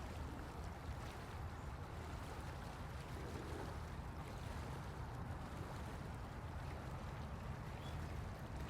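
Steady low rumble of background noise with a faint hiss over it, unchanging throughout, and a single faint high chirp near the end.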